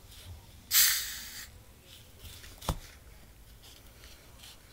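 A short hiss about a second in, fading over half a second, then a single sharp click, as a plastic Sprite Ginger bottle is handled.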